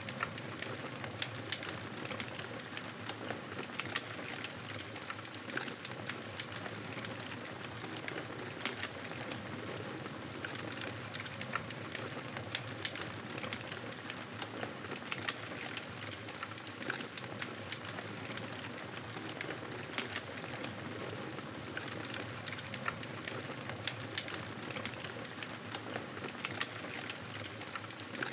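Campfire burning with a steady hiss and frequent sharp crackles and pops of the burning wood.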